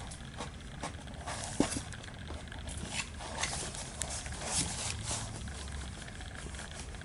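Rubber grooming brush rustling through a cat's fur in short strokes, with the cardboard box scraping and a sharp knock about one and a half seconds in as the cat rolls over and paws at the hand. A low purr comes and goes underneath.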